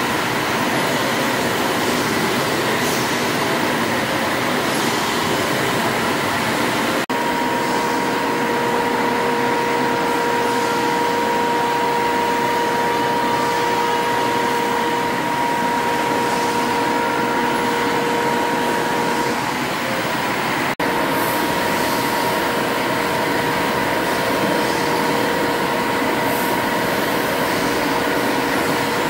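1902 Robey cross compound horizontal steam engine running on compressed air: a steady mechanical din with a constant whine, broken briefly twice, about seven and twenty-one seconds in.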